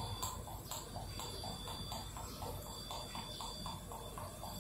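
Cooking oil pouring from a glass bottle through a pour spout into a plastic cup: a faint, even run of soft glugs, about four a second.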